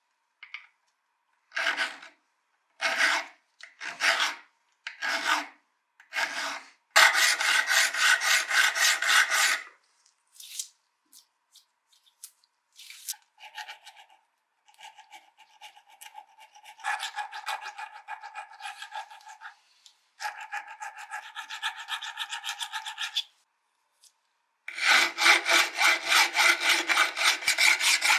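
Flat hand file scraping across the rusty steel edge of an old wrench clamped in a vise. It starts with five slow separate strokes, then a quick run of short strokes. Lighter strokes follow in the middle, and another fast, loud run comes near the end.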